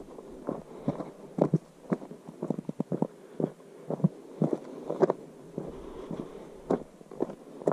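Footsteps of a person walking on a path, a series of short, uneven steps.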